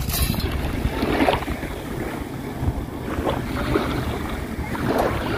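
Wind on the microphone over shallow seawater splashing and lapping around wading feet.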